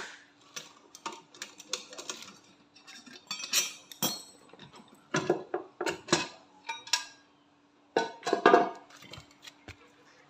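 Irregular metallic clinks and clatters of hand tools, sockets and bolts being handled while the CVT cover of a Honda ADV 160 scooter is unbolted.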